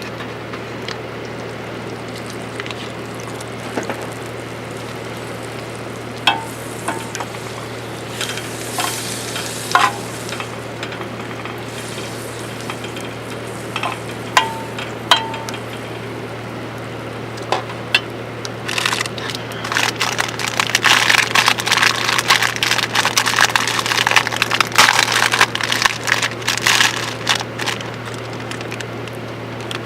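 Food frying in a pan: scattered sharp clinks of a utensil against the pan, then a dense crackling sizzle that starts about two-thirds of the way in and dies down near the end.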